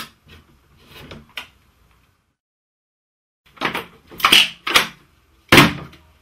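Metal drill press parts knocking and clanking as they are handled during disassembly. There is a sharp click at the start and a few soft knocks, then a run of louder clanks about three and a half seconds in. The loudest hit, near the end, rings briefly.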